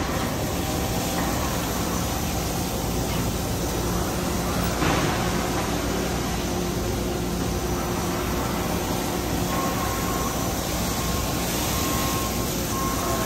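Makino MC-108 CNC horizontal machining center running with flood coolant spraying: a steady mechanical hum and hiss with a brief louder burst about five seconds in and a thin steady whine joining around ten seconds in.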